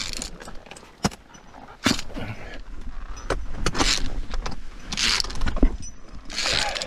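Via ferrata lanyard carabiners clinking and scraping on the steel safety cable as they are handled and moved along it, a string of sharp metal clicks, between short bursts of hiss.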